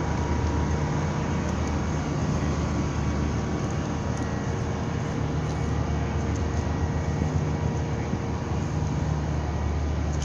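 Ship's engine running steadily during docking: a low, even drone with a constant hiss over it.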